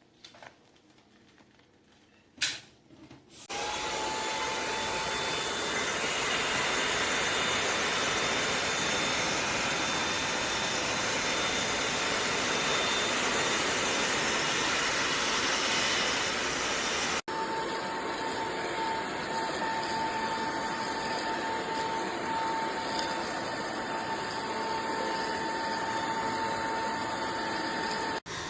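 Eureka RapidClean Pro cordless stick vacuum switched on with a click and running steadily, its motor a loud whooshing hum with a steady whine. About two-thirds of the way through it breaks off for a moment and runs on a little quieter with a changed sound.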